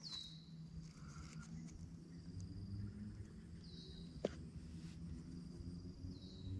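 Faint insect drone, with a bird's short falling whistle three times, about three seconds apart, and a single sharp click about four seconds in.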